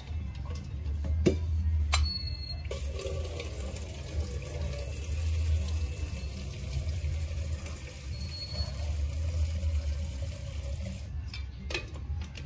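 Water pouring steadily from a kettle, starting a few seconds in and stopping near the end, over a low rumble. A few sharp knocks come before the pour starts and one as it ends.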